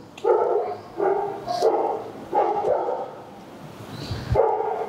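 A dog barking several times in quick succession, then a pause, then one more bark near the end.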